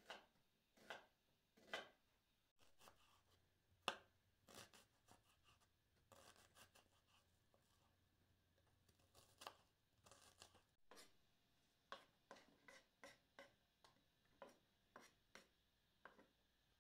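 Kitchen knife chopping onion on a wooden cutting board: separate sharp knocks of the blade on the board, spaced out at first, then a quicker, steadier run of cuts near the end.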